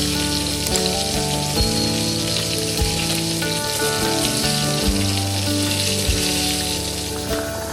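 Instrumental music with a steady beat of about one stroke a second, over a steady hiss.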